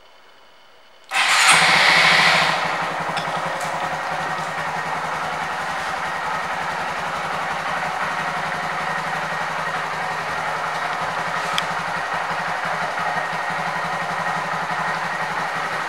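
2019 Honda Monkey's 125 cc air-cooled single-cylinder engine starting up about a second in, briefly louder as it catches, then settling into a steady idle.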